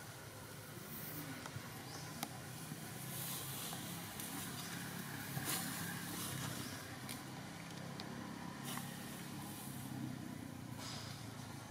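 A steady low motor hum under a hissy outdoor background, with a few faint clicks.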